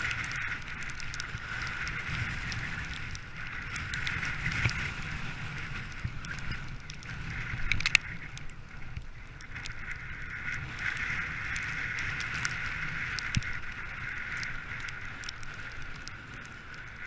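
Dog sled gliding over snow: a steady hiss from the runners with a low rumble underneath, scattered clicks, and one sharp knock about eight seconds in.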